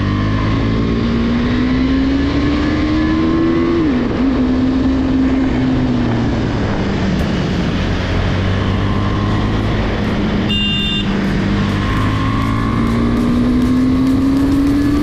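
KTM Duke 390's single-cylinder engine pulling hard: the revs climb, drop sharply about four seconds in on a quickshifter upshift, ease off, then climb again near the end. A short high-pitched beep sounds a little past ten seconds.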